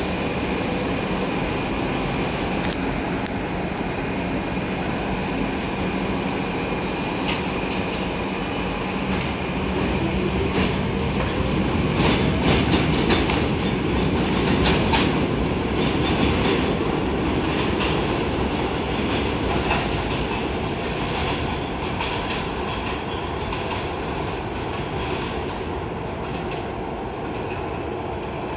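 R62 subway train on an elevated line pulling away: a steady rumble with wheels clicking over rail joints and switches. It is loudest about halfway through, then fades as it recedes.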